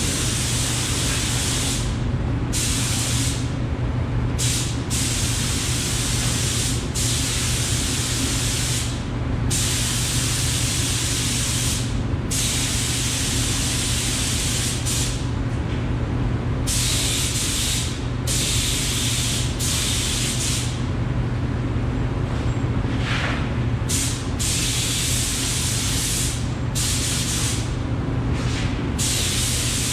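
DeVilbiss FinishLine air spray gun spraying epoxy primer, a loud steady hiss that cuts out briefly every few seconds as the trigger is released between passes. A steady low hum from the booth's exhaust fan runs underneath.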